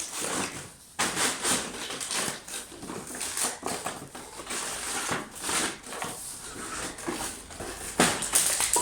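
Plastic toy kitchen pieces and a cardboard box being handled and packed away: irregular rustling, scraping and clattering, louder near the end.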